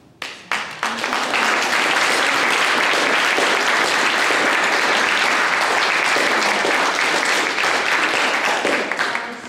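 Audience applauding in a room: a few scattered claps that build within a second into steady, dense applause, easing off near the end.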